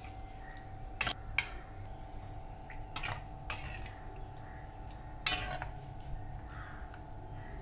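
Metal spoon stirring paneer curry in a steel kadhai, clinking and scraping against the pan several times, over a faint steady hum.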